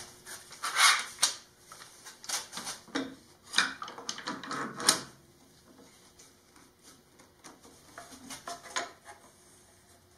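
Steel bar clamps clacking and clicking as they are set on the work and their screw handles tightened, in irregular knocks that are loudest over the first five seconds and then thin out to fainter clicks.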